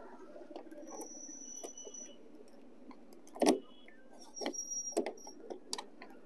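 Lockable plastic diesel-tank cap on a John Deere 5045D tractor being twisted open by hand: faint high squeaks from the turning cap, a sharp click about three and a half seconds in, then a few lighter clicks.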